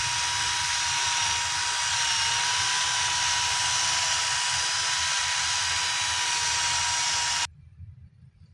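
Electric drill running steadily at high speed, spinning a thin steel rod while a strip of sandpaper is held against it, with a steady high whine. It stops abruptly near the end.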